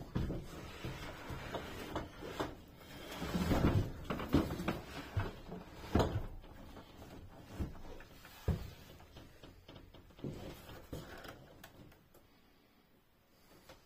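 Bumps, knocks and scraping of a small Whirlpool fridge being shoved and nudged into a tight wooden cabinet opening. There is a longer scrape about three and a half seconds in and sharp thumps around six and eight and a half seconds, and it goes quiet near the end as the fridge settles in place.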